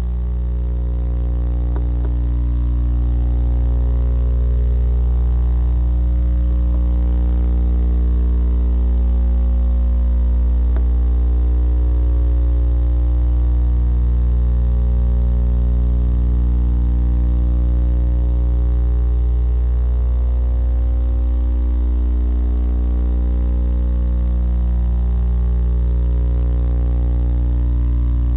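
Steady low electrical hum with a stack of overtones, mains hum picked up by the nest-box camera's audio.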